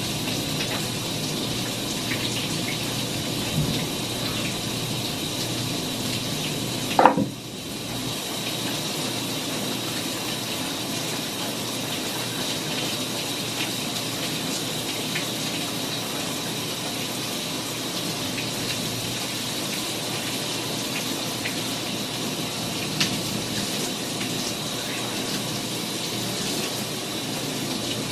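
Shower water spraying steadily from the showerhead onto the bather and the tiled stall, with one short, loud sound about seven seconds in.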